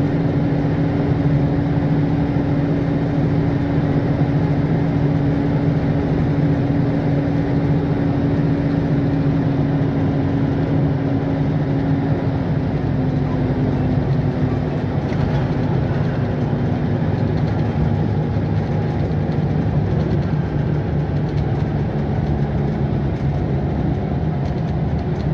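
Scania DC9 diesel engine and driveline of a Scania CL94UB city bus running under way, heard from inside the passenger cabin as a steady drone. Its pitch eases down a little about halfway through.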